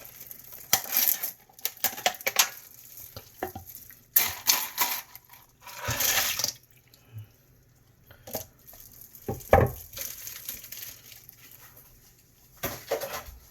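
Ice cubes poured into a bowl of broth, clattering in three bursts with scattered clinks between.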